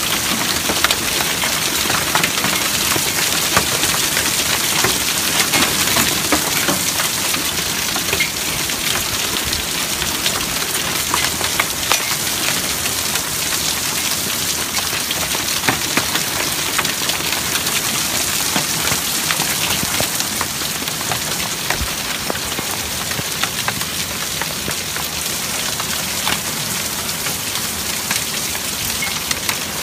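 Hail and heavy rain pelting a wooden deck and a glass-top patio table: a steady, dense hiss of rain with many sharp clicks of hailstones striking.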